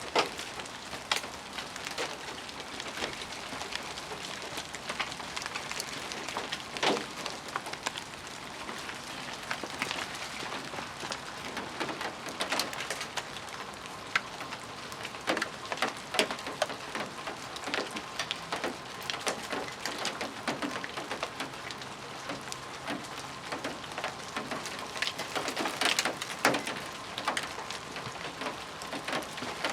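Chunks of melting ice dropping from ice-coated tree branches and hitting the ground, a steady patter like hail with many irregular sharp clicks and a few louder cracks.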